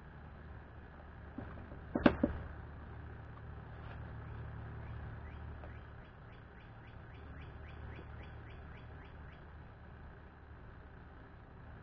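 Animal calls: short chirps repeating a few times a second, with a louder burst of quack-like calls about two seconds in, over a low steady hum.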